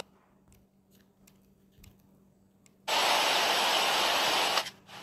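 Near silence for about three seconds, then a steady rushing noise lasting under two seconds that stops abruptly: the edit's added sound-effect track playing back in the CapCut preview.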